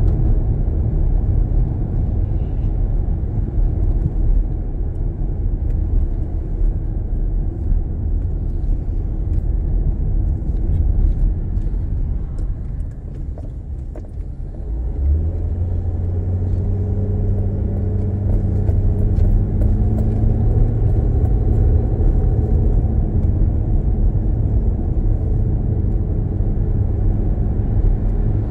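Car driving along a winding road, heard from inside the cabin: a steady low rumble of tyres and engine that eases off about halfway through as the car slows, then a steady engine hum as it picks up speed again.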